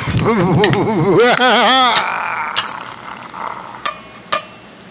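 A person's voice warbling up and down for about two seconds, then a metal masher working through mashed strawberries in a bowl and striking the bowl twice near the end with short ringing clinks.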